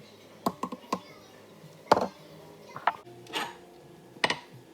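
Kitchenware being handled: a series of sharp knocks and clinks, the loudest about two seconds in, with a brief scrape about three and a half seconds in.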